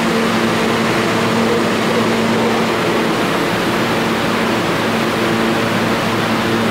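R160B subway train standing at the platform with its doors open, its air-conditioning and auxiliary equipment running: a steady rushing hiss with a low, even electrical hum.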